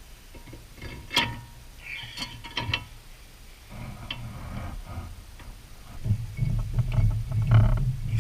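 Hand tools and metal parts clinking and knocking at irregular moments while the wheel hub and brake assembly are being bolted back on. A low, pulsing hum joins about six seconds in.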